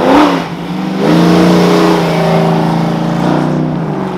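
Car engines as cars drive past: one engine revs up and back down briefly at the start, then another engine note comes in about a second later and holds steady as a car pulls past close by.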